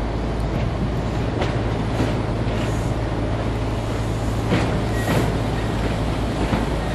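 Merseyrail Class 507 electric multiple unit pulling slowly into the platform: a steady low running hum and wheel noise, with a few faint clicks.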